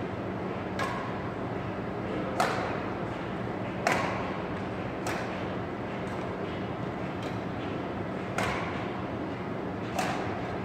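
Badminton rackets hitting a shuttlecock in a rally, a sharp pop every second or so with a short echo. A steady low hum runs underneath.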